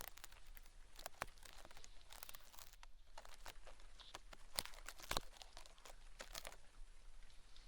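Horsetail-hair ear-cleaning wand worked inside the ear of a binaural microphone, making a faint, irregular run of crackling scratches and ticks.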